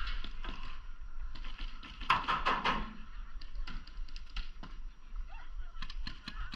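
Paintball markers firing across the field: scattered sharp pops and short rapid strings of shots, with a burst about two seconds in and another near the end.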